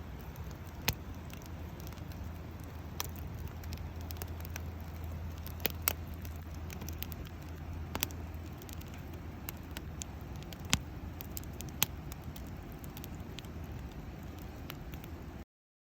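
Wood fire crackling in a fire pit: irregular sharp pops over a steady low rush, with a low hum that fades about halfway through. The sound cuts off suddenly near the end.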